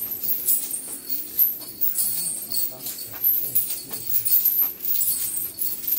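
Metallic jingling from a walking elephant's metal gear, coming and going in short bursts, with faint voices behind.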